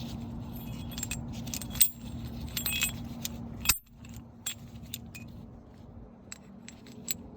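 Light metallic clinks and clicks of brake parts and hand tools being handled, a scatter of sharp ones with the loudest about two seconds and nearly four seconds in.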